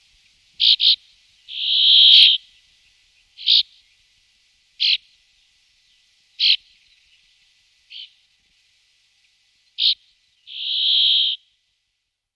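Brambling calling: short, sharp calls every second or two, with a quick pair about a second in, and two drawn-out buzzes of about a second each, the brambling's song, one about two seconds in and one near the end.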